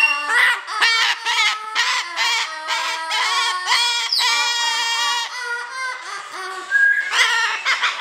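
Umbrella cockatoo singing: a quick run of short pitched calls and glides, with a longer, harsher call about four seconds in.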